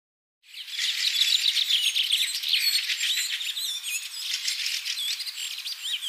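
A flock of small birds chirping and whistling together in a dense, overlapping chorus of many quick high calls, starting about half a second in.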